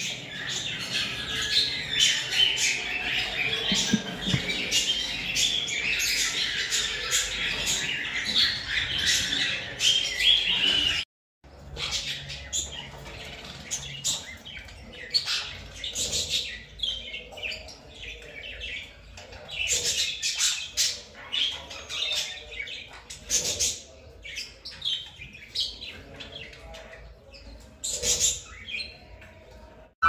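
Cockatiels in a nest box, parents and young chicks, chirping and squawking in a dense, high chatter. The calls stop short about eleven seconds in, then go on sparser and quieter.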